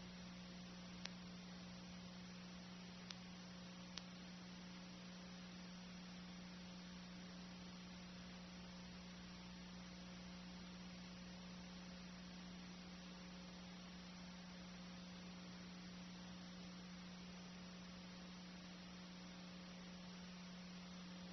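Near silence: a steady low electrical hum over faint hiss, with three faint clicks about one, three and four seconds in.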